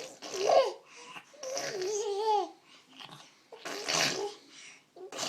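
A young child making farting noises with her mouth, mixed with high-pitched babbling and laughter in short bursts.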